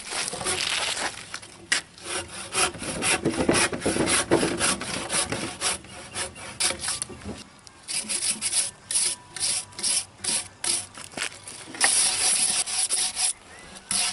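Bark and loose outer wood being scraped and scrubbed off a bug-eaten log, the bark loosened by the insects' tunnelling so it comes away easily. The second half is quick, even strokes of a stiff wire brush, about three a second.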